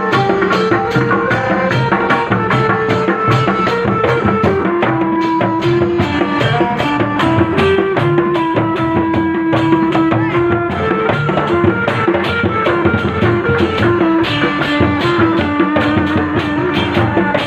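Sundanese dogdog street-percussion group playing: hand drums and large double-headed barrel drums beating a fast, dense rhythm, with a melody of long held notes over them.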